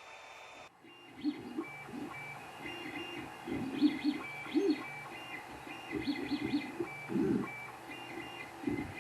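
Creality Ender 3 3D printer printing: its stepper motors give short, irregular pitched whirrs and chirps that change note as the print head and bed move, starting about a second in.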